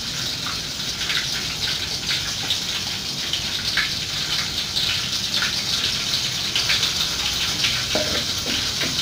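Steady rushing hiss of water, with faint scattered ticks.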